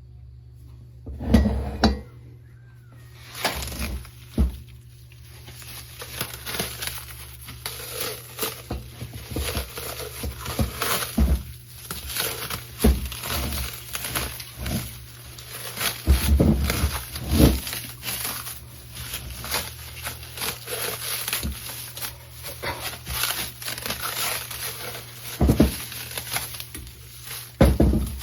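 Metal parts being handled, clinking and knocking, with crinkling and tearing of wrapping material throughout. A few louder knocks stand out near the start, around the middle and near the end.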